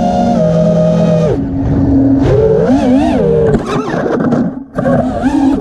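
5-inch FPV freestyle quadcopter's brushless motors whining, the pitch rising and falling with the throttle, then dropping away in the last couple of seconds to a few short throttle blips.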